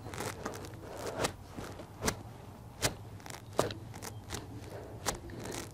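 An irregular series of short, sharp clicks and light knocks as a semi truck wheel hub is pushed and pulled on its spindle to check wheel bearing end play.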